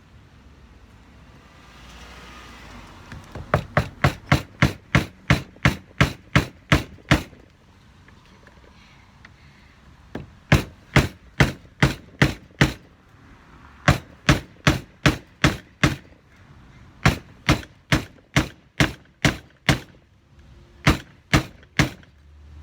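Hammer tapping on a wooden stick to drive a window screen's locking rod into the frame channel: sharp blows about three a second, in five runs with short pauses between them.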